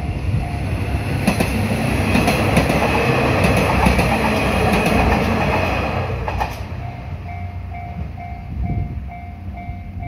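Kiha 185 series diesel tourist train running across a level crossing, wheels clacking over the rail joints, the noise falling away about six and a half seconds in as the last car clears. The crossing's warning bell keeps dinging in an even repeat, about two to three times a second, heard plainly once the train has passed.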